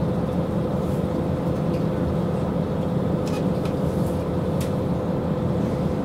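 KiHa 40 diesel railcar's engine idling while the car stands at a station, heard from inside the car: a steady low rumble with a steady hum, and a few faint clicks midway.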